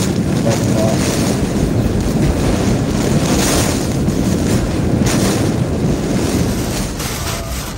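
Hurricane-force wind and driving rain beating on a stopped car, heard from inside the cabin as a loud, steady rush. Gusts surge about three and a half and five seconds in, and the noise eases slightly near the end.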